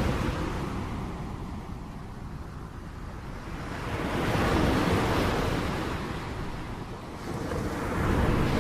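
Rain falling as a dense, even rushing hiss that swells and eases about every four seconds, like gusts of wind driving it.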